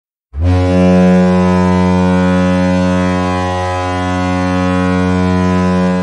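Kahlenberg Triton S-120 goal horn sounding one long, steady, deep blast, starting a moment in: the ice-hockey goal signal.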